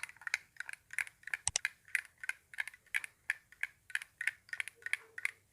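Spoon stirring herb seeds in a glass of hot water, clinking lightly against the glass about three times a second.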